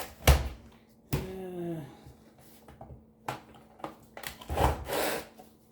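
Sharp clicks and knocks of the hard plastic casing of a 15-inch Philips computer monitor being pried at its snap-fit clips, the loudest snap just after the start and a cluster of knocks near the end.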